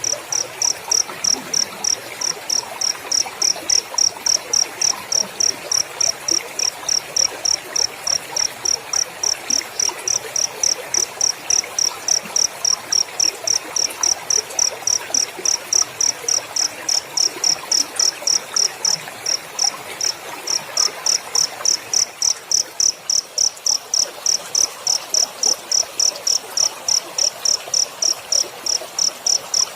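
Cricket chirping in a steady, even rhythm of short high-pitched chirps, about three a second, over a faint hiss.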